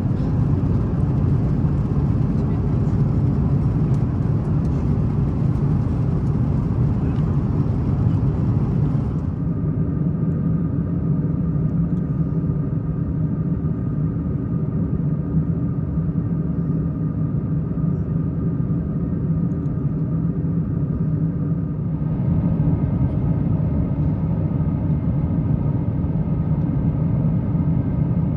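Steady cabin noise of an Airbus A350-900 airliner: a loud, even rumble of engines and airflow with several low droning hums. The higher hiss drops away abruptly about nine seconds in and partly returns about 22 seconds in.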